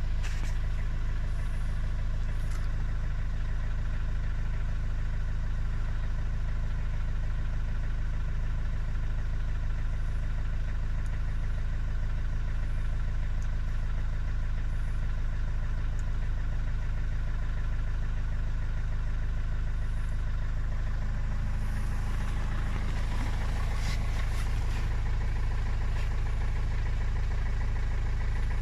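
Vauxhall Vivaro van engine idling roughly with a knock, which the owner says lasts until it has warmed up. He wonders whether an EGR fault or a vacuum leak is the cause.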